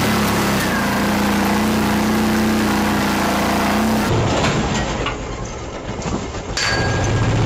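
Side-by-side UTV engine running steadily while driving, with a constant drone. About four seconds in it falls quieter, and it picks up again near the end.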